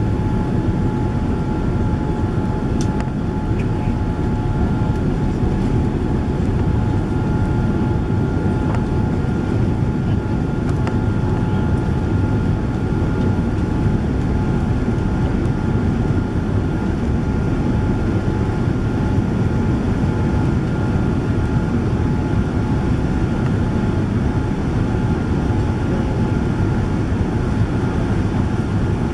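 Cabin noise of a Boeing 787-9 Dreamliner in its climb after takeoff, heard from a window seat by the wing: a steady deep roar of engines and airflow, with two faint steady whining tones over it.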